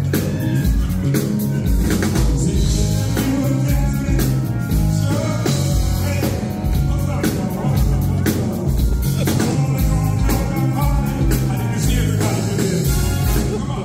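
Live stage music with drums and a repeating bass line, and a man singing over it into a handheld microphone.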